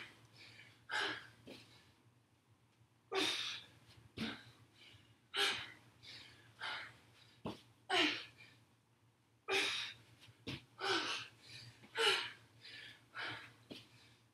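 A woman breathing hard during burpee-style exercise, with short forceful exhalations and gasps about once a second, and a few sharp knocks of her feet landing in between.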